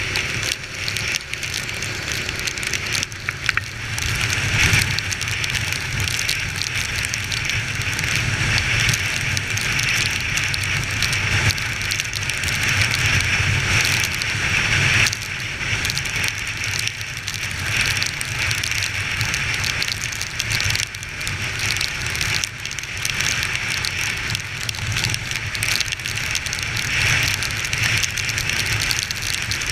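Honda XR 250 Tornado's single-cylinder engine running on the move, under a steady rush of wind and rain noise.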